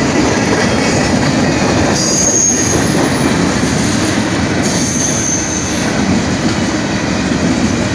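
Canadian Pacific freight train of covered hopper cars passing close by, its wheels rumbling steadily over the rails. Two brief high-pitched wheel squeals come through, about two seconds in and again about five seconds in.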